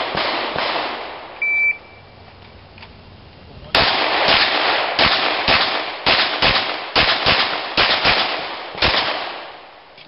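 Handgun shots in a fast string that dies away in the first second, a short electronic shot-timer beep about a second and a half in, then after a pause a second string of about a dozen rapid shots between about 4 and 9 seconds, each with an echoing tail.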